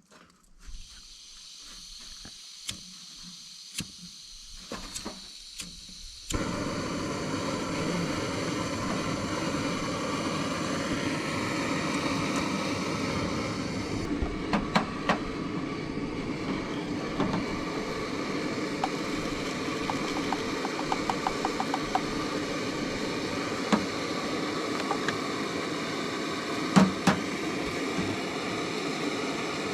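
A vehicle running steadily, starting abruptly about six seconds in, with occasional knocks and rattling clicks over the drone.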